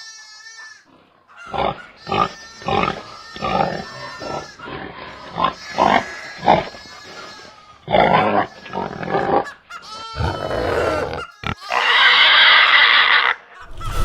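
Pigs grunting in a string of short grunts, followed near the end by one long, loud squeal.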